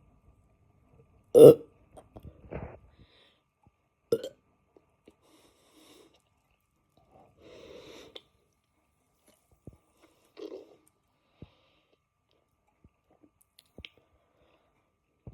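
A person burping from the gas of carbonated Sprite: one loud burp about a second and a half in, then several smaller, separate burps spread out after it, one of them longer and softer, with quiet between.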